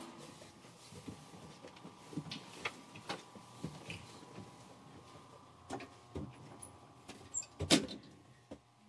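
Elevator doors sliding shut, meeting with a knock near the end, over a faint steady hum and scattered light clicks and knocks.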